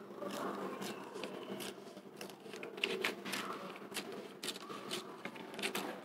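A thin sheet of paper rustling and crinkling as it is folded and pressed by hand, with scattered light crackles.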